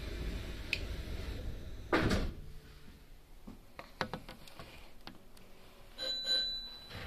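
Inside a Nankai electric train: a low rumble, a single heavy thunk about two seconds in, then scattered light clicks and a brief high electronic tone near the end.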